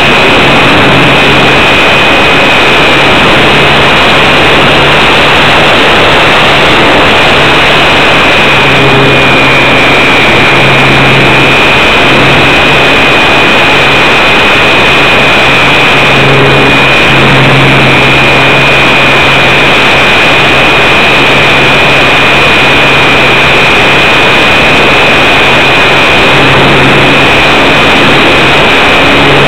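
Hobbyzone Super Cub RC plane in flight, heard from its onboard camera: a loud, steady rush of air over the microphone with the electric motor's steady high whine, the recording heavily overloaded.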